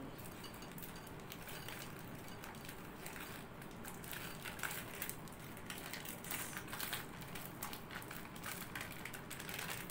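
Faint, irregular crinkling of an Oreo biscuit packet's plastic wrapper and crunching of the biscuits as they are broken up by hand over a bowl.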